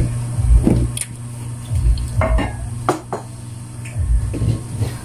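Spoons and cups clinking against plates and dishes at a meal table: a few scattered short clinks with some dull knocks.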